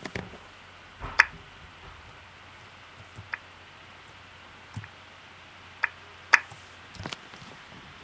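Hammer blows on construction work, heard from a few rooms away: about seven separate knocks at uneven spacing, the loudest about a second in and again just past six seconds.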